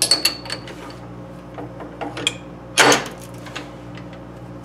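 Metallic clicks and clunks of steel tooling at a metal lathe's tailstock and drill chuck, with one louder clatter about three seconds in, over a steady mechanical hum.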